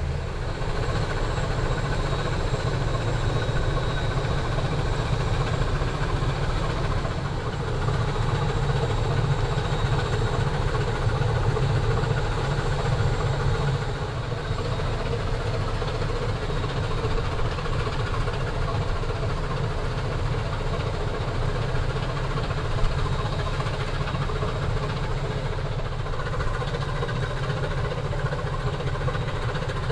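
Steady low rumble of an inland motor cargo ship's diesel engine passing close by on the river. The level drops a little about halfway through.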